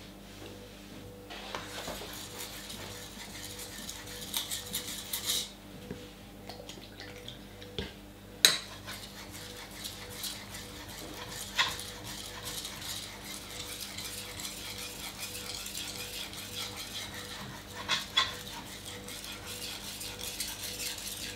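Kitchen knife blade being stroked back and forth over a wet water stone during rough grinding: a steady rasping scrape with each pass. A few sharp clicks of the blade against the stone or its holder stand out, the loudest about eight seconds in and two close together near the end.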